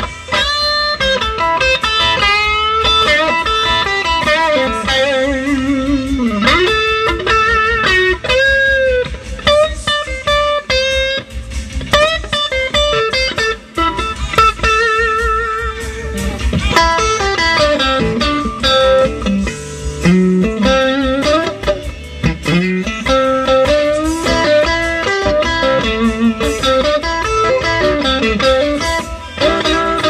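Electric guitar, a 1962 Fender Stratocaster, played through a 1960 Fender tweed Bassman amplifier in single-note lead lines with string bends and vibrato. The amp is freshly fitted with a new Mallory 150 filter capacitor in place of a leaky Astron, and the owner hears the notes as more defined.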